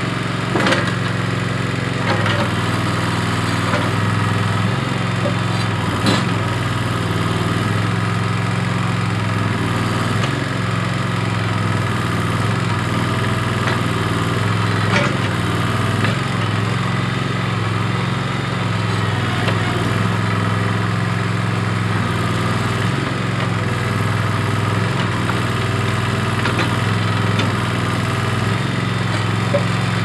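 Terramite T5C mini backhoe-loader's engine running steadily as the backhoe digs, with a few sharp knocks.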